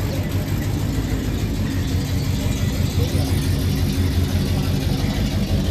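Studebaker sedan's engine running steadily at low revs as the car rolls slowly away, a low hum that grows slightly louder near the end.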